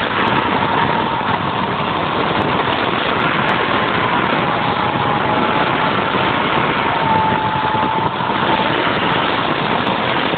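Car engine sound effect, the engine running steadily with a faint wavering whine over it.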